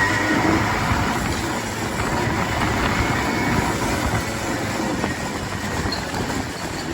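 Modified Yamaha RX100's single-cylinder two-stroke engine running after being revved, a dense rattly exhaust note that slowly grows quieter.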